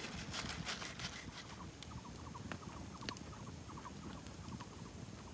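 Faint sharp crackles and scraping as a goat head is singed over a small wood fire and its hair scraped off with a knife. A faint rapid string of short, even high notes runs through the middle.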